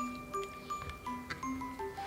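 Background music: a light melody of short, separate notes, with a few faint clicks.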